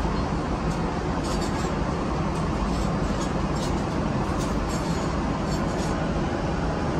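Steady in-flight cabin noise of a Boeing 777-300ER: an even, constant rushing hum of airflow and engines, with a few faint light clicks over it.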